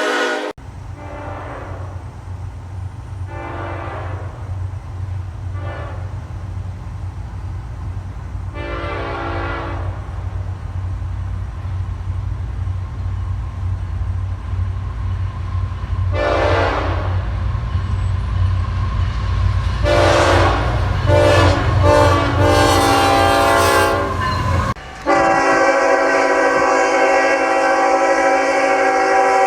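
Locomotive air horn sounding a series of separate blasts over the low, steadily building rumble of a passing train, with several blasts close together near the end. Then an abrupt cut to a second recording with a horn held in one long continuous blast.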